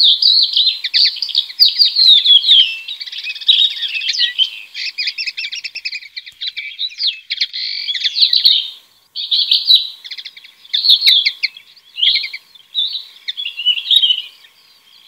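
Southern grey shrike singing close by: a long, varied run of quick chattering and whistled notes, broken only by short pauses, with other small birds singing farther off.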